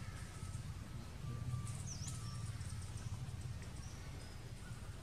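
Outdoor ambience: a steady low rumble with two short, high chirps about three seconds apart, and a few faint thin whistles in between.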